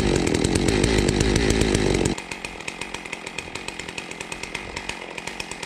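Two-stroke Holzfforma G660 chainsaw engine driving a Lewis MK2 capstan winch, running steadily as it hauls in the cable. About two seconds in it drops sharply to a fainter, more distant engine note with a fast, even ticking.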